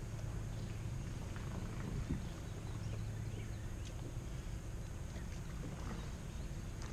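Bass boat's bow-mounted electric trolling motor running with a steady low hum, with a few faint ticks and clicks on top.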